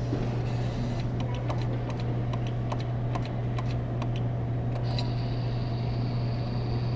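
Claw machine running: a steady low hum with many light, irregular clicks from the claw mechanism, and a thin high whine that comes in about five seconds in.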